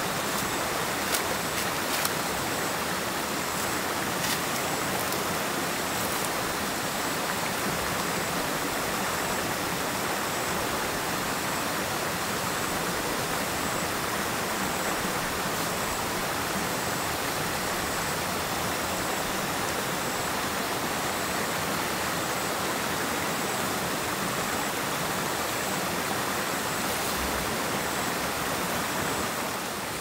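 Steady rushing of running water, with a few sharp snaps in the first few seconds as ears of corn are broken off the stalks.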